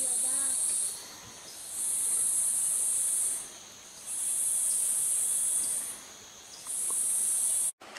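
Insects calling: a loud, high-pitched buzz that swells in and out in phrases about a second and a half long, repeating roughly every two seconds, over a fainter steady insect hum.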